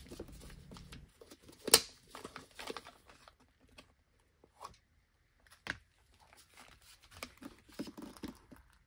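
Handling noises from prying open the sealed plastic diaphragm-switch housing of a macerator pump: scattered quiet clicks and rustles, with a sharper snap just under two seconds in and another near six seconds.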